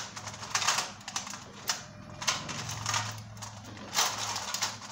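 Irregular clicks and scrapes of hands handling a soldering gun and the parts of an LED tube light during a solder repair, over a faint low hum.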